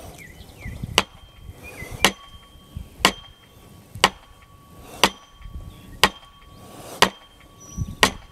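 Sledgehammer blows on a wooden block capping a steel chain-link gate post, driving the post down into soft, sandy soil. Eight evenly paced strikes about a second apart, each leaving a short ring from the steel post.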